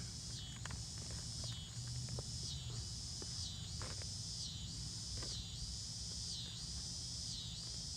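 A chorus of insects buzzing high and steadily, swelling and dipping in an even pulse about once every three-quarters of a second. A few faint clicks and a low rumble lie underneath.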